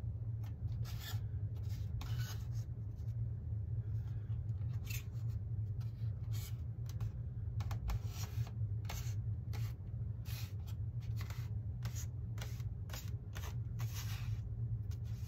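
Small irregular clicks, taps and rubs of balsa wood being handled and pressed into place on a building board, over a steady low hum.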